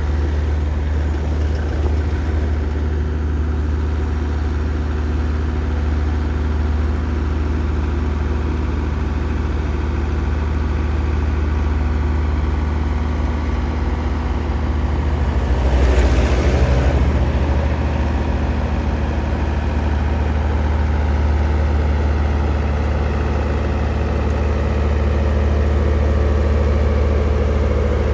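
A vehicle engine running steadily at idle, with a brief louder rush of noise just past halfway through.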